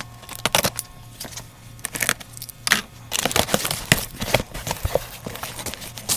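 Cardboard shipping box being opened by hand and its packing material rustled and crinkled, with irregular sharp clicks and knocks, busier in the second half.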